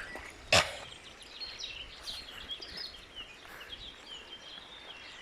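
Small birds chirping in short, scattered calls over a steady hiss of flowing river water, with one brief knock about half a second in.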